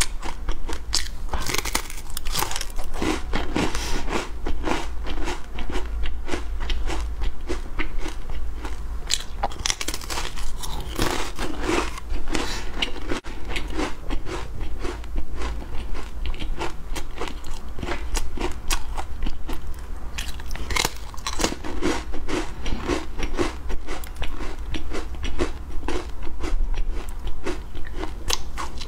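A person biting and chewing thin, crisp sesame crackers: a dense, steady run of sharp crunches.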